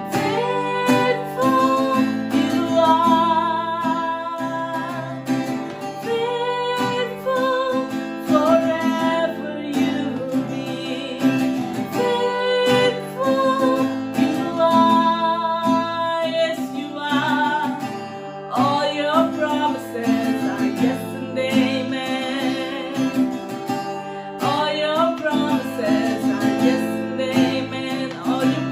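Worship song with strummed acoustic guitar and a voice singing a slow, drawn-out melody.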